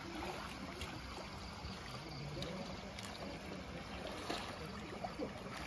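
Swimming-pool water lapping and trickling quietly as a swimmer wades with an inner tube, with faint voices in the background.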